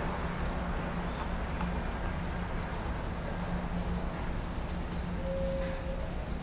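Bananaquit nestlings begging: a continuous run of very high, thin, quickly falling calls, about five a second, while the adult feeds them. There is a steady low rumble underneath, and a few short steady mid-pitched tones come in near the end.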